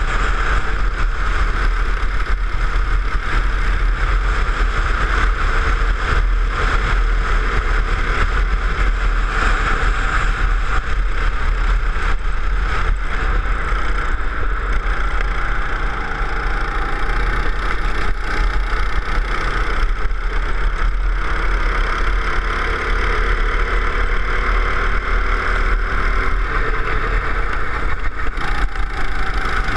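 Go-kart engine running hard during a lap, its pitch rising and falling as the kart accelerates out of corners and eases off into them, with steady wind noise on the microphone.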